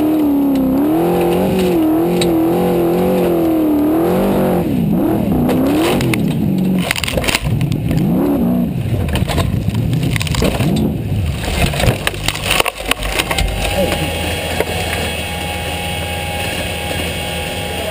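Off-road competition buggy's engine heard from inside the car, revving up and down in rapid swings, with clattering knocks as the car bounces over rough ground from about seven seconds in. Near the end the engine note gives way to a steadier hum with a thin whine.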